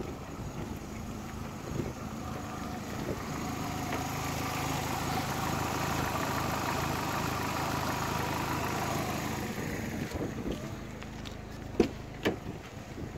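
Opel 1.2-litre X12XE 16-valve four-cylinder petrol engine idling steadily, louder through the middle as the open engine bay is approached. Two sharp knocks near the end.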